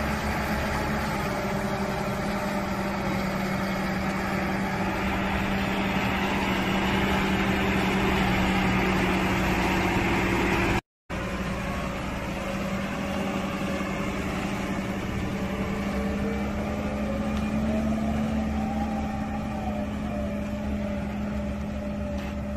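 Diesel engine of an Ajax Fiori self-loading concrete mixer running steadily as the machine pulls away, with a brief dropout about halfway and a slight rise and fall in engine pitch later on.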